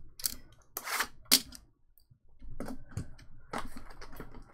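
A shrink-wrapped cardboard card box being picked up and handled: the cellophane wrap crinkling and the box tapping against the hands and table in short, sharp bursts, with a brief pause about two seconds in.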